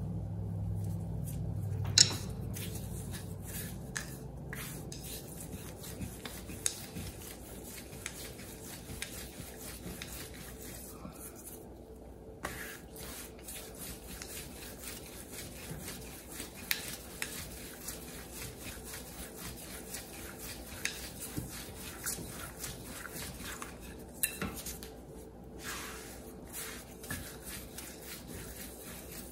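Naan dough being rolled out with a thin wooden rolling pin on a silicone mat: a soft rolling, rubbing noise broken by many light taps and clicks of the pin. A single sharp knock about two seconds in.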